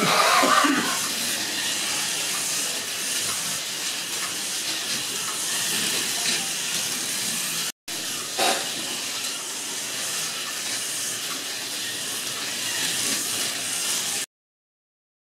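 Several slot cars running laps on a routed wooden track, giving a steady high whirring hiss from their small electric motors and from the pickup braids on the metal rails. The sound drops out for a moment about halfway through and cuts off abruptly about a second before the end.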